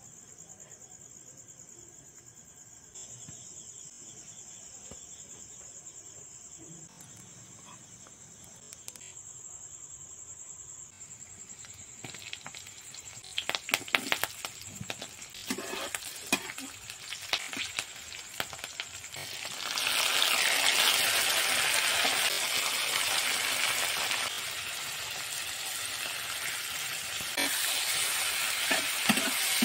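A steady high-pitched chirring of crickets over quiet room sound. Partway through, chopped onions are tipped into hot oil in a kadai and crackle, and the sizzling swells to its loudest a few seconds later. Near the end, a metal spatula scrapes and stirs the frying onions, tomatoes and green chillies in the pan.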